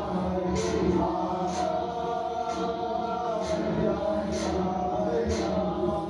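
Background music: voices singing or chanting in held notes over a steady beat about once a second.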